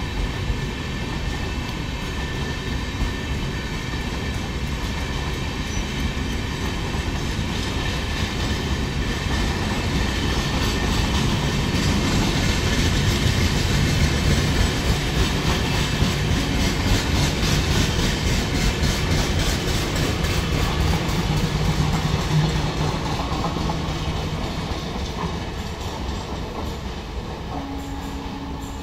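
A fast freight train of covered vans passing close by, with a continuous rush of wheels on rail and rapid clickety-clack over the joints. It grows louder through the middle, where a low steady hum joins in, then eases off near the end.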